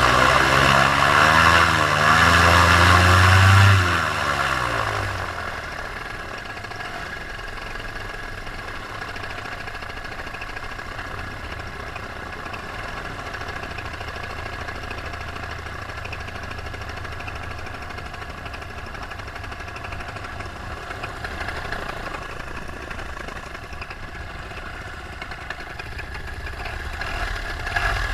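Paramotor engine running at full throttle, then about four seconds in its pitch falls and it drops back as the revs come down. It then runs on steadily and more quietly.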